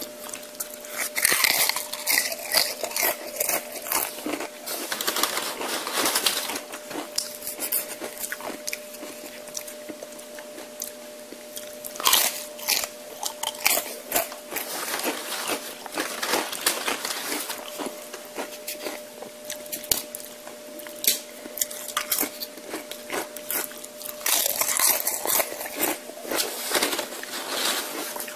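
Close-miked eating of a Chipotle meal: wet chewing with crisp crunches from tortilla chips. Louder clusters of biting and crunching come about a second in, around 12 seconds in and again near the end. A faint steady hum runs underneath.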